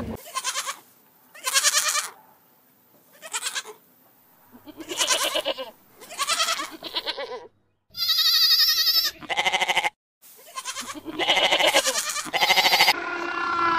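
Goats bleating again and again, about ten calls one after another with short pauses between, several with a wavering pitch.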